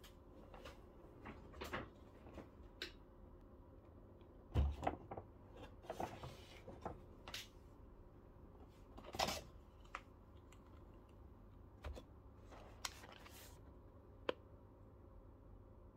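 Handling noises: a paper shopping bag set down on the counter and a bag of coffee beans taken out of it, giving a scattered series of knocks and short rustles, with the loudest thumps about four and a half and nine seconds in.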